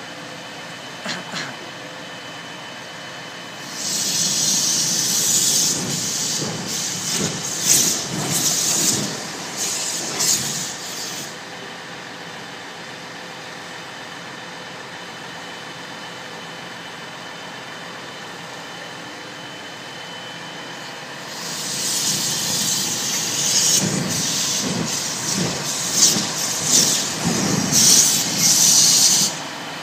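Gas escaping under pressure from a leaking LPG cylinder and burning as a jet flame: a loud hiss for about seven seconds, a lull of about ten seconds, then hissing again for about eight seconds that cuts off suddenly near the end as the flame is put out.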